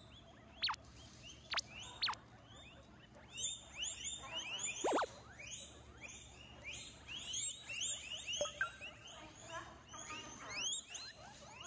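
A group of guinea pigs squeaking (wheeking): many short, high squeaks overlapping one another, growing busier from about three seconds in, with a few longer falling whistles in the first two seconds.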